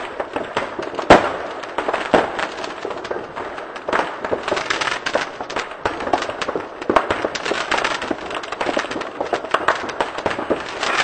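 Fireworks going off in quick succession: a dense crackle of firecrackers and bursting shells, with a sharp bang about a second in and another about two seconds in.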